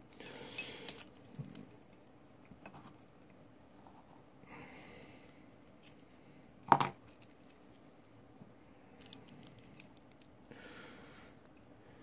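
Keys jangling, with small metal clicks and rustles, as a bunch of keys and a lock cylinder core are handled. One sharp click comes about seven seconds in.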